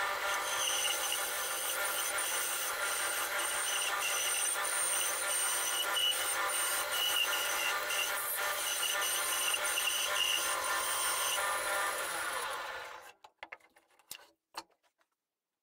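Bandsaw running with a steady high whine while a round wooden disc is fed through the blade in a jig. The saw winds down and stops about thirteen seconds in, followed by a few light knocks.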